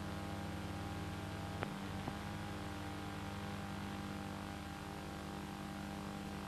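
Steady electrical hum and hiss, with two short clicks about half a second apart near the two-second mark.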